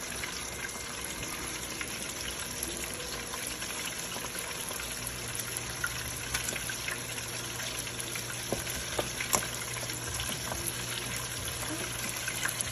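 Lumpia (Filipino spring rolls) deep-frying in a pot of oil at 350°F: a steady sizzle and bubbling with scattered small pops.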